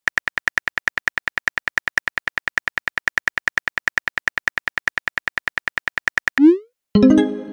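Rapid phone-keyboard typing clicks, about eight a second, as a text message is typed out. They stop about six and a half seconds in with a short rising swoosh, followed by a louder pitched pop-like chime of a message being sent.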